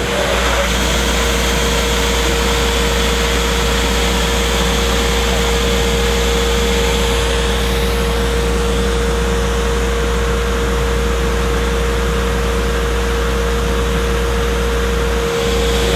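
Fire engine pump running steadily while a charged hose line flows water through a nozzle, giving a steady rush of water over a low rumble with a constant tone.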